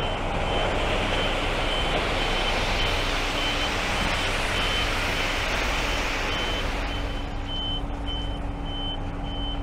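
Reversing alarm of a construction vehicle sounding evenly spaced, single-pitch high beeps over a diesel engine's steady low running. A broad rush of engine and machinery noise swells over the first several seconds and eases off about seven seconds in.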